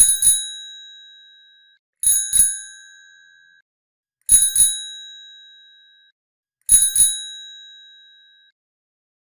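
Bicycle bell rung four times, about two seconds apart, each time a quick double ring whose tone fades out over a second and a half.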